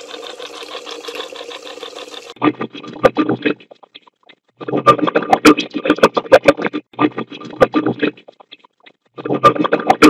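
White noise run through AI noise-suppression software, played back as choppy, garbled voice-like fragments broken by short silent gaps and clicks, after a steady hiss in the first two seconds. The maker hears the fragments as the words 'Michael… let's move it… going back to August'.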